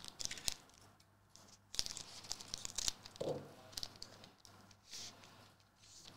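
Foil wrapper of a Magic: The Gathering collector booster pack crinkling and tearing as it is handled and ripped open, an irregular run of crackles and rustles.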